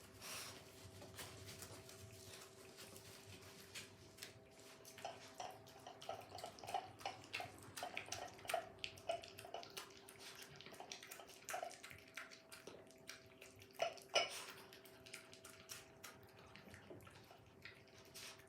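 Faint water sounds: light splashing and dripping, with a run of small splashes in the middle and two sharper, louder ones about two-thirds of the way in, over a faint steady hum.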